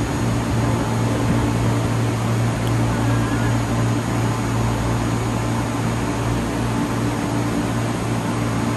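MTR East Rail Line MLR (Metro-Cammell) electric train standing at the platform with its doors closed, its onboard equipment and air conditioning giving a steady low hum over an even rushing noise.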